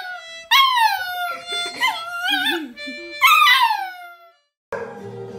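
A puppy howling along to a melodica: three high, wavering howls that start high and slide downward, over soft held melodica notes. Near the end the sound cuts out briefly and a different, steady, lower-pitched musical sound begins.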